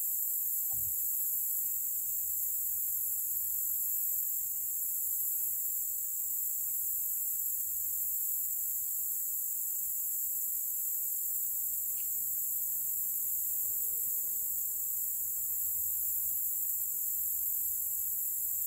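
Steady, high-pitched chorus of insects shrilling without a break.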